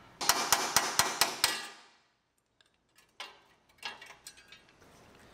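A quick series of hammer blows, about six or seven in a second and a half, on a steel bracket whose spot welds have been drilled, knocking the welds loose from the frame rail; a couple of faint knocks follow.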